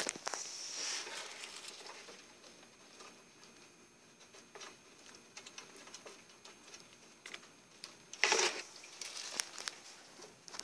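Pet rats moving about their cage, making small scratching and rustling noises, with a sharp click at the very start and a louder burst of rustling about eight seconds in.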